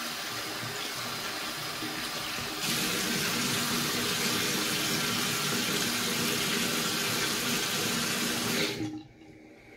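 Bathroom sink tap running hot water, the hiss of the stream getting louder about three seconds in, then turned off shortly before the end.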